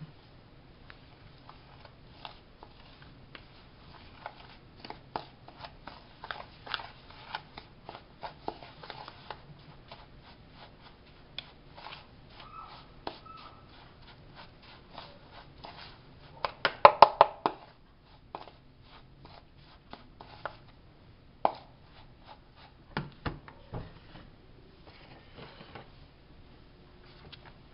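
A spoon stirring thick brownie batter in a plastic bowl: irregular scraping and clicking against the bowl, with a quick run of louder knocks about two-thirds of the way through.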